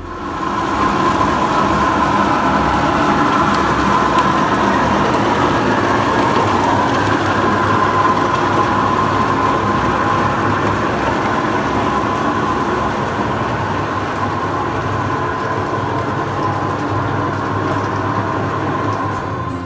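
Motorised grape destemmer running steadily while whole bunches are fed into it: a constant machine hum over a rattling, rushing noise.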